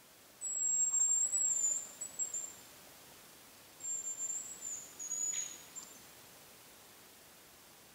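Two high, thin hazel grouse whistles, each a drawn-out note sliding slightly down in pitch and breaking into shorter notes. The first starts about half a second in and the second about four seconds in.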